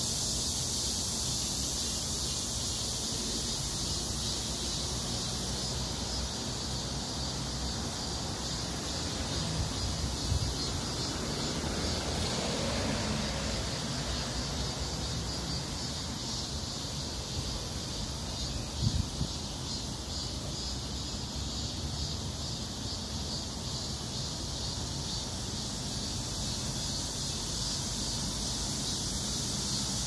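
Steady, high-pitched chorus of insects with a fine rapid pulse, continuing without a break. Two soft knocks, about ten and nineteen seconds in, sit over it.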